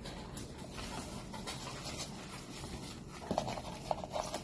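An animal panting steadily. Near the end, shredded crinkle-paper filler crackles and rustles as a hand digs into a cardboard box.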